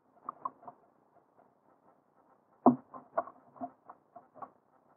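Irregular light taps and clicks, with one louder knock about two and a half seconds in, muffled and dull-sounding in a heavily noise-filtered recording.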